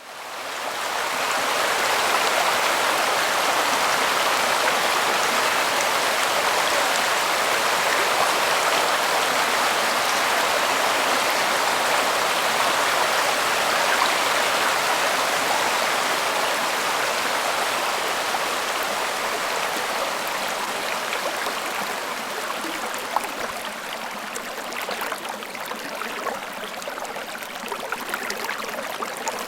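Rainforest creek water rushing and tumbling over rocks in a steady, even flow. The sound fades in over the first couple of seconds.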